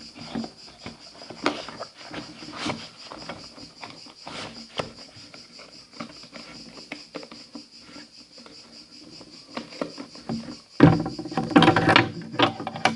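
Handling noise: scattered light clicks and taps of items and packaging being moved, over a faint steady hiss. About eleven seconds in comes a louder, denser stretch of rustling and knocking.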